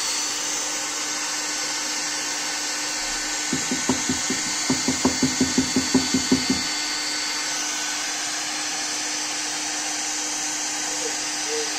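Hot air gun blowing steadily with its motor hum. About three and a half seconds in, and for some three seconds, a quick run of about fourteen rubbing strokes, roughly five a second, as a steel piece is worked back and forth over the heat-softened plastic of the chair joint to round it.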